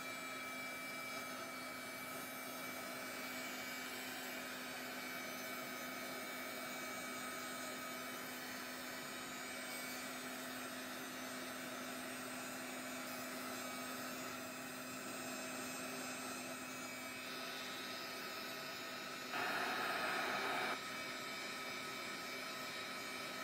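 Handheld heat gun blowing steadily with a constant hum, drying wet water-based stain on playing cards. It briefly gets louder for about a second and a half near the end.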